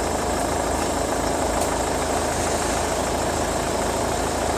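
Car engine idling steadily with an even, unchanging hum.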